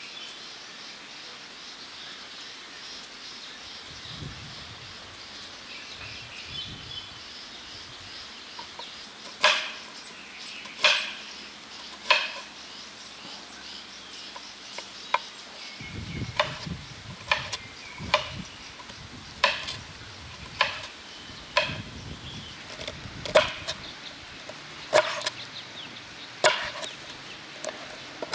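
Cooking-utensil knocks, a sharp strike about every second and a half starting about a third of the way in, over a steady hiss and a few bird chirps.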